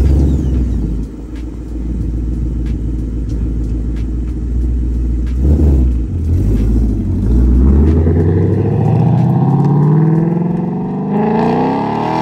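Ford Mustang Mach 1's 5.0 L V8 through a Steeda mid pipe and factory active exhaust with the resonator removed. It comes in loud at the start and runs steadily with a deep rumble, revs briefly about five and a half seconds in, then accelerates with a steadily rising note as the car pulls away.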